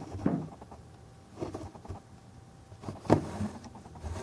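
Small clicks and rattles of a 1/50 scale die-cast model excavator being handled and turned in the hands, in three short bursts.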